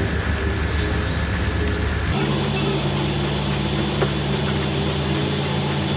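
Thin slices of beef sizzling on a paper-lined electric grill, a steady crackling hiss. About two seconds in, a steady low hum joins it.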